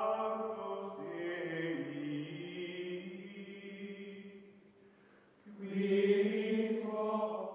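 Background music of long, held chant-like vocal tones. It fades low about two-thirds of the way in, then swells back up near the end.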